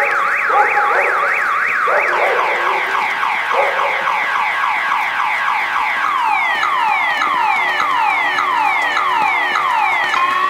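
Several emergency-vehicle sirens sounding together and overlapping. A fast rising yelp repeats about three times a second at first, then gives way to falling sweeps roughly every half second or so, and a slow rising wail begins near the end.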